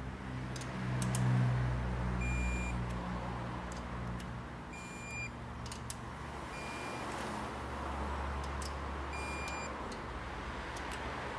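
Digital torque wrench beeping as each valve-cover bolt reaches its 6 Nm setting: four short, high electronic beeps two to three seconds apart, with light clicks from the wrench and bolts between them, over a steady low hum.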